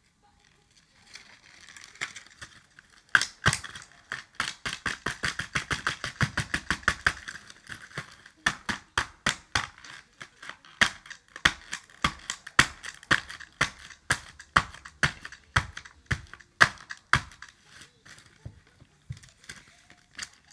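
A screwdriver repeatedly stabbing and striking a cardboard toy box with a plastic window, a long run of sharp clicks and cracks: rapid at first, then slower, about two or three a second.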